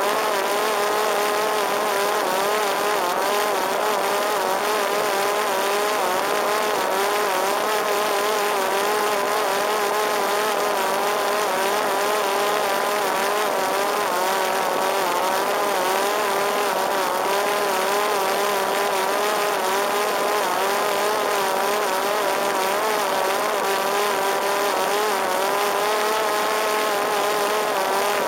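Parrot Disco fixed-wing drone's electric motor and pusher propeller running steadily in flight, a whine whose pitch wavers slightly up and down, over a steady hiss of rushing air.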